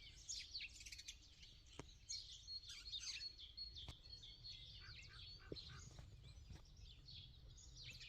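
Faint wild birdsong: several birds chirping and warbling at once, one of them holding a high, even note for about two seconds in the middle. A few soft sharp ticks come through now and then.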